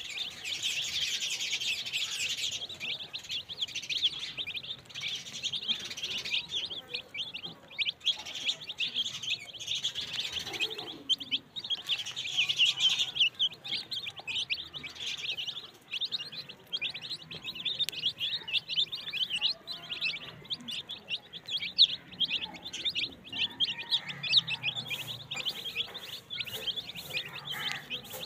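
A flock of young domestic chicks peeping continuously while they feed, many short high cheeps overlapping, with sharp taps of beaks pecking feed off a plastic plate.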